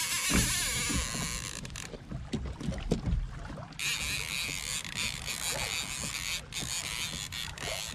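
Fishing reel drag buzzing as a hooked fish pulls line off. It stops about two seconds in and starts again near the middle, over low slaps and sloshing of water against the kayak hull.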